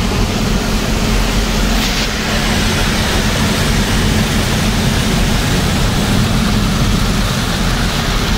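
Steady engine drone heard from inside a moving vehicle's cab, with an even hiss of heavy rain and road noise over it.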